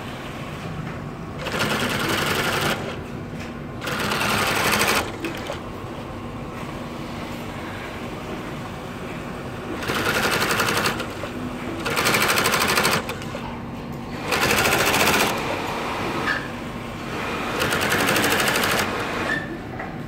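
Industrial cylinder-arm sewing machine stitching a snap ring into the cuff of a felt filter bag, running in six short bursts of about a second each with pauses between.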